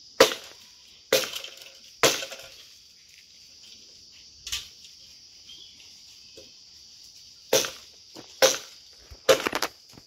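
Chopping strokes of a blade on bamboo, each a sharp crack: about eight hits at uneven spacing, with a quick run of several near the end. The bamboo has been cut and is being trimmed and cleaned.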